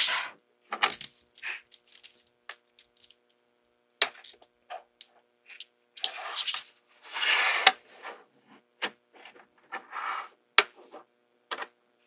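Small magnetic balls clicking and rattling together as they are handled and snapped into place, in irregular clicks and short clusters, with a longer rattle a little past the middle.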